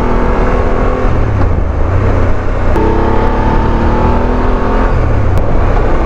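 BMW F 850 GS parallel-twin motorcycle engine running at road speed, with heavy wind rush on the bike-mounted microphone. The engine note rises steadily, breaking briefly about two and a half seconds in before climbing again.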